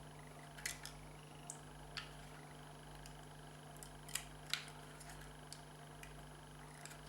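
Faint, scattered clicks and light taps from a Mercedes W202 reverse light switch being handled and worked apart, over a steady low hum.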